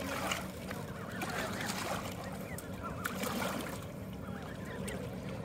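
Ducks calling in a run of short, repeated calls.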